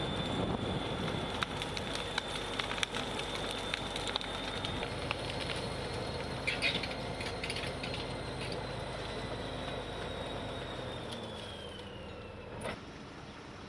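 Caterpillar crawler bulldozer working through brush: its diesel engine runs steadily under a high, steady whine, with scattered sharp cracks and clanks from the tracks and snapping branches. Near the end the whine slides down in pitch and the engine note drops, and one sharp crack follows.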